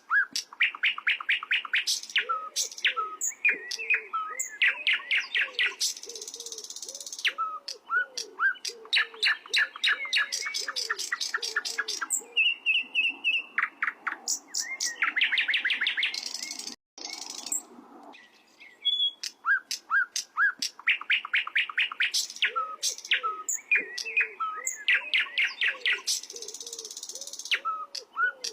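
Sikatan londo songbird singing: rapid, repeated high chirps and trills in bursts, with a steady run of lower, softer notes underneath. The song cuts out briefly a little past the middle.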